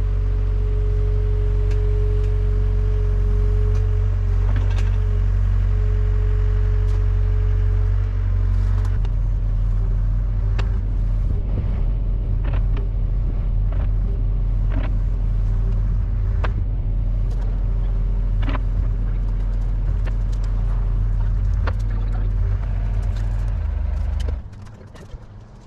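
Sany 60 mini excavator's diesel engine running under load, with a steady whine for the first several seconds. From about nine seconds in, irregular sharp knocks and clicks sound over it, and about a second before the end the engine sound stops abruptly.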